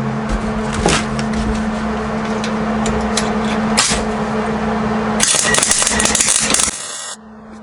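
An electric welder humming, with sputtering arc crackles as the bead starts. About five seconds in, a steady frying arc runs for about a second and a half, then cuts off.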